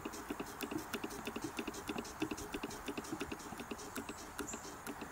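Hand-cranked Eldredge Automatic chain stitch sewing machine, a Willcox & Gibbs clone, stitching at a steady pace: its needle mechanism clicks in an even, rapid rhythm.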